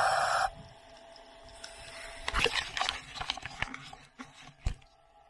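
A brief loud rush of water as the camera breaks the surface. It is followed by scattered clicks and knocks and one dull thump, typical of scuba gear being handled on a boat deck.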